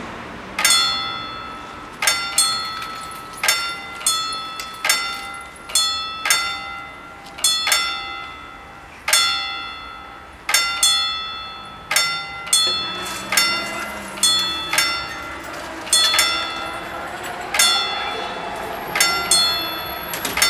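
Two level-crossing warning bells ringing out of step, single strikes about one to two a second, each ringing on: the warning that a train is approaching.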